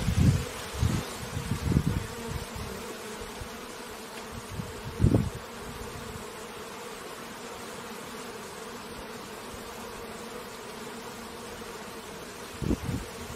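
Bees buzzing at a beehive: a steady, many-voiced hum, with brief louder low swells in the first two seconds, about five seconds in, and near the end.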